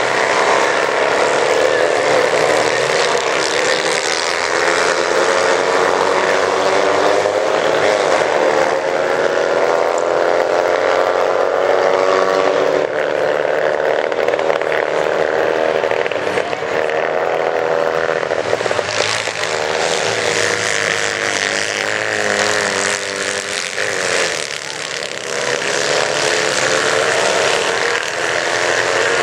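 Several kartcross karts with Citroën 2CV 602 cc air-cooled flat-twin engines racing together on a dirt track. The engines rev up and down as they pass and corner, fading briefly about three-quarters of the way through before building again.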